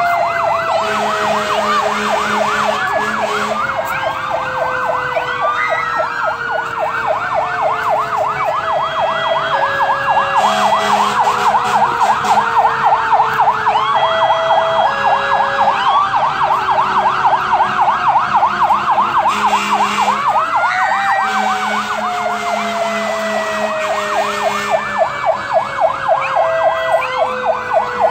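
Fire engine sirens sounding as the trucks roll past: a rapid electronic yelp warbling without a break, over a second siren whose wail glides slowly down in pitch and winds back up about twenty seconds in. Short horn blasts sound over them now and then.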